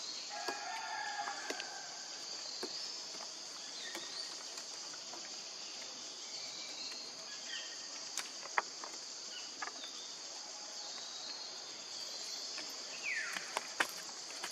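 Steady high-pitched chorus of forest insects, with scattered sharp clicks and a few short chirps. Near the end comes a brief falling call.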